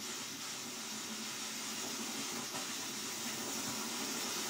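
Small brass camping stove burning with a steady hiss from its burner, growing slightly louder.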